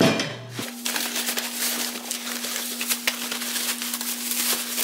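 Bubble wrap and cardboard packing inserts crinkling and rustling as they are handled and pulled out of a shipping box, with many quick crackles throughout.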